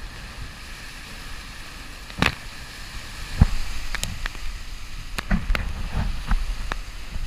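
Wind and rushing water aboard a racing sailboat driving through storm waves, with a deep buffeting rumble. Over it comes a run of sharp, irregular knocks and taps starting about two seconds in, the loudest about three and a half seconds in.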